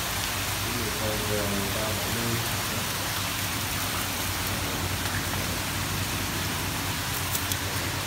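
Steady rain-like hiss of water with faint voices about a second in and a few light clicks near the end.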